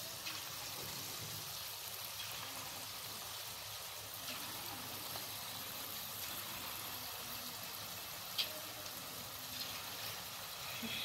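Marinated chicken pieces deep-frying in hot oil in a kadhai: a steady sizzle with a few small pops.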